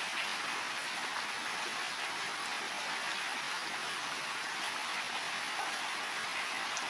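Heavy rain falling steadily on building roofs: an even hiss with faint scattered drop ticks.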